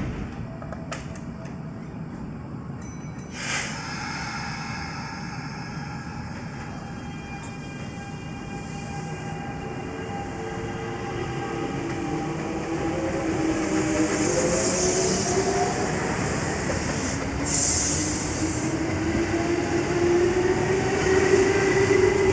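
Kintetsu express train of 1233-series and 8400-series cars pulling out of a station. The traction motors whine, their pitch rising slowly as the train gathers speed, with short hisses of air along the way.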